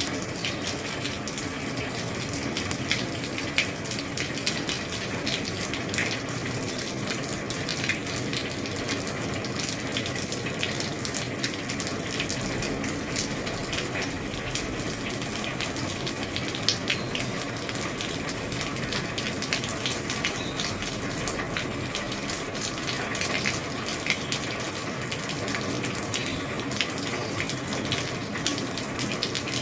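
Steady heavy rain drumming on an old roof, a dense hiss of many closely packed drop impacts with no let-up.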